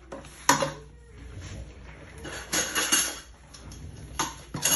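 Clatter and rustling from assembling a fabric closet frame: a sharp knock about half a second in, then further clacks and fabric rustling as the fabric shelves are handled on the plastic connectors and tubes.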